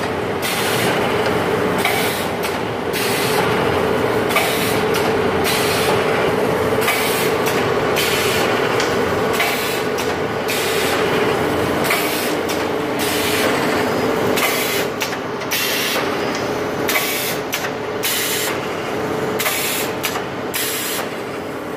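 Automatic atta (flour) pouch packing machine running: a steady mechanical hum with frequent short bursts of hiss.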